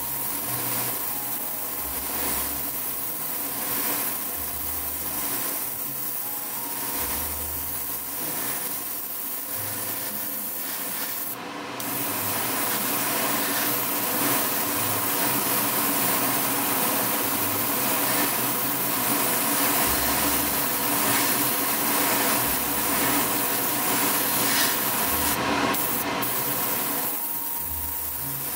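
Airbrush spraying paint, a hiss of compressed air through the nozzle. It comes in short passes at first, then runs louder and steadier after a brief break partway through, over a steady mechanical hum.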